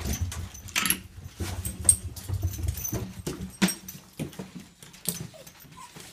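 Two Basenji dogs moving about excitedly on stairs and a wooden floor, with many sharp clicks and knocks from claws and paws and some faint whimpering.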